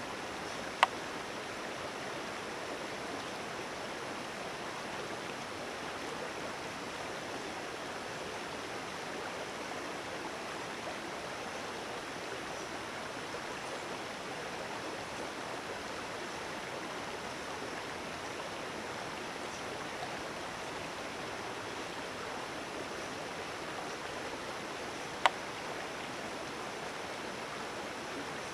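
Creek water rushing in a steady, even hiss. Two brief sharp clicks stand out above it, one about a second in and one near the end.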